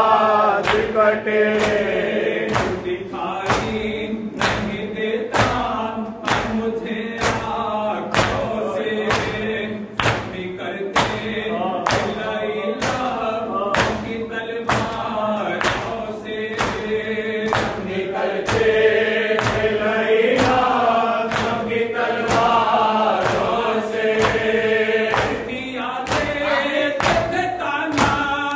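Men chanting a Shia nauha lament together, a lead reciter on a microphone answered by the group, kept in time by rhythmic chest-beating (matam), a sharp slap about twice a second.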